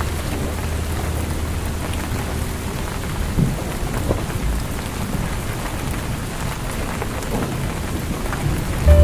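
Steady rain pattering against a window. A deep low rumble of thunder fades away during the first second, and another rumble starts abruptly right at the end.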